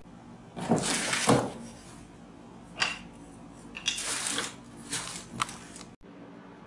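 Rustling and light knocks of papers, bags and small objects being rummaged through on a cluttered shelf, in a few short bursts with pauses between.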